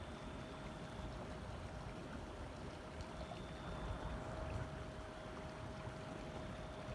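Small boat under way on a lake: a steady rush of water and wind with a constant motor hum.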